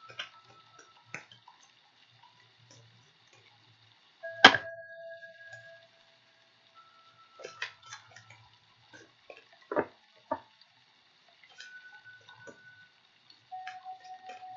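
Oracle cards being shuffled and handled: irregular soft clicks and taps, the sharpest about four seconds in and two more near ten seconds. A few short single ringing notes sound among them.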